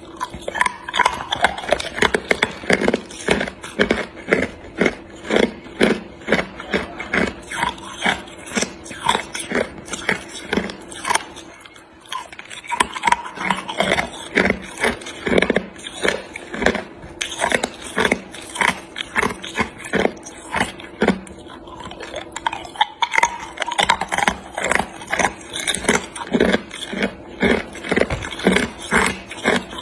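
Hard clear ice cubes being bitten and crunched between the teeth: sharp, rapid cracks about three a second, with a short pause about twelve seconds in.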